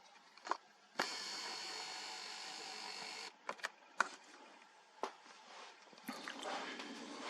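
Sharp clicks, then a steady hiss with faint tones from a small amplifier board's speaker that starts suddenly, lasts about two seconds and cuts off. More single clicks follow, and a rougher noise rises near the end.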